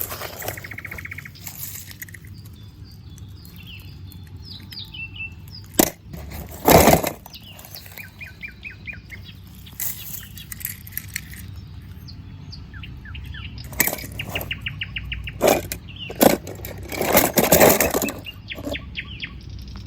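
Dry leaves crackling and rustling in short bursts, several times, the loudest near the middle and near the end, with small birds chirping in quick runs of repeated notes.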